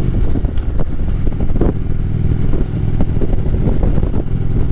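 Harley-Davidson V-twin engine running steadily at cruising speed, with wind rushing over the helmet-mounted microphone.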